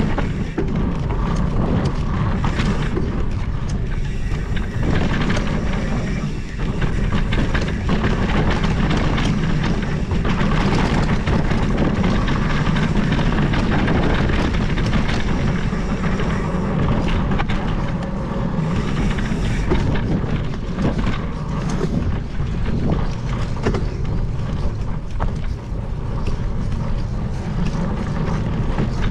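Mountain bike descending a dirt trail: wind rushing over the camera microphone and the tyres rumbling over the ground, with frequent clicks and knocks from the bike over bumps.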